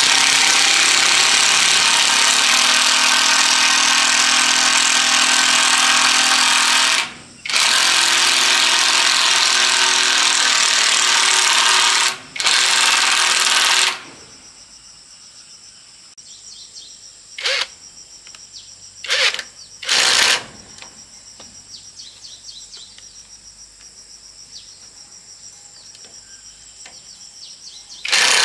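A handheld power tool used on corrugated iron roofing runs in three long spells, about seven seconds, then about four and a half, then under two, and after a pause is triggered in three short bursts. Insects chirp faintly in the quieter stretch.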